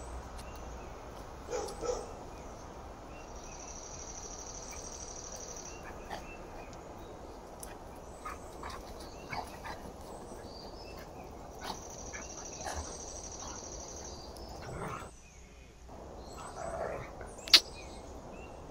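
Two dogs playing on a lawn, with a few short dog vocalisations, the loudest about a second and a half in, over a steady outdoor background with faint high chirps. A sharp click near the end is the loudest sound.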